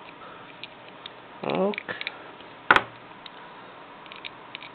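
Soldering work on a circuit board: a single sharp click a little past the middle, then faint scattered ticks, as the soldering iron and copper desoldering braid work along the chip's pins to remove solder bridges. A brief murmured voice sound comes about a second and a half in.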